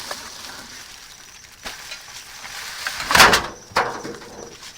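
Rummaging through trash in a dumpster, with a loud noisy scrape about three seconds in and a shorter knock just after.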